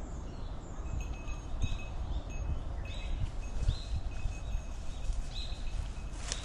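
Outdoor rumble with irregular low thumps, and four or five short, high calls spread through it, each rising then falling.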